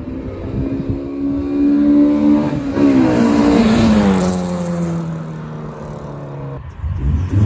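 Honda Ballade VTEC's B16A 1.6-litre four-cylinder engine pulling hard past the camera. Its note climbs, drops sharply about three seconds in, then slides lower and fades as the car moves away.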